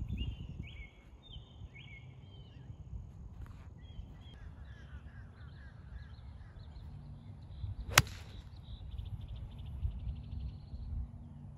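A golf iron strikes the ball once, a single sharp crack about eight seconds in, on a shot the golfer calls terrible. Birds chirp in the background.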